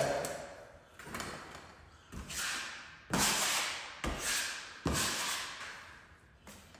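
Drywall knife scraping joint compound: five scraping strokes, each starting sharply and fading over about a second.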